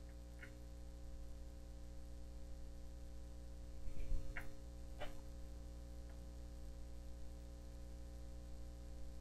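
Steady electrical hum, with a soft knock and a few faint clicks about four to five seconds in.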